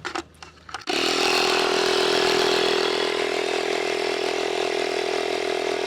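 Portable tyre inflator compressor switching on about a second in and running steadily, a constant buzzing drone, pumping up a slowly punctured tyre.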